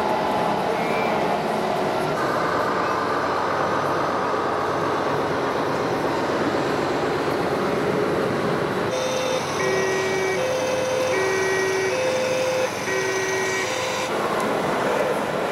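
Steady hubbub of a busy exhibition hall. About nine and a half seconds in, a model emergency vehicle's two-tone siren starts, alternating between a higher and a lower note for about four rounds, and stops about a second before the end.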